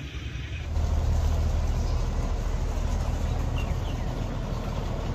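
An engine running steadily with a low hum that becomes louder about a second in.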